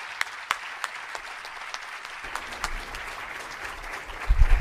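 Audience applauding: a few sharp, close claps at first, then steady clapping from a crowd. A loud low thud comes near the end.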